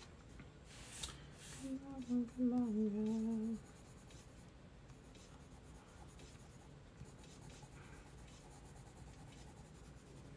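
A woman's voice humming briefly about two seconds in, over the faint scratching and light taps of drawing on sketchbook paper.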